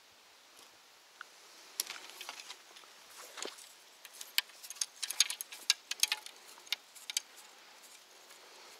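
Light clicks and rattles of fishing gear being handled, a quick irregular run of them from about two to seven seconds in.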